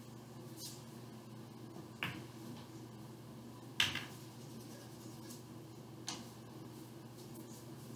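A pool shot: sharp clicks of cue and balls about two seconds in and, loudest, near four seconds, with a lighter click about six seconds in, over a steady low room hum.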